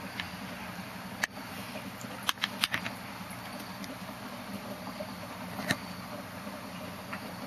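A steady low hum with a hiss over it, broken by a few sharp clicks: one about a second in, a quick run of four around two and a half seconds in, and one near six seconds.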